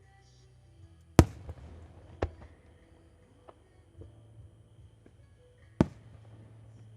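Fireworks shells bursting: three sharp bangs, the loudest about a second in, another a second later and one near the end, with a few fainter pops between, over quiet background music.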